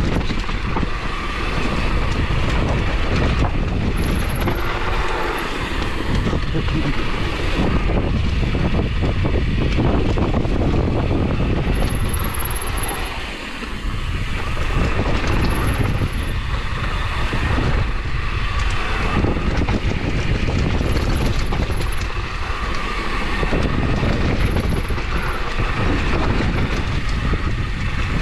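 Mountain bike ridden fast downhill: a steady rush of wind on the microphone over the rattling rumble of tyres and frame on rough trail, easing briefly every few seconds.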